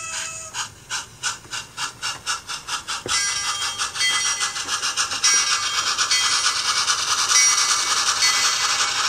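Onboard sound of a Bachmann On30 0-4-2 Porter model steam locomotive: the tail of a whistle toot, then steady steam chuffs about three a second that grow louder and busier about three seconds in as the locomotive runs past, with short ringing tones over the chuffing.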